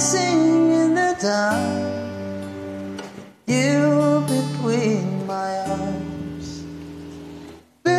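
Music: a man singing a slow song while playing a small plucked string instrument. The sound drops out briefly twice, about three and a half seconds in and just before the end.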